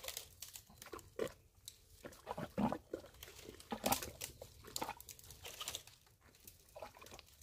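Hands digging into a muddy crab burrow through dry leaf litter: faint, irregular soft squelches mixed with crackles of dry leaves and twigs.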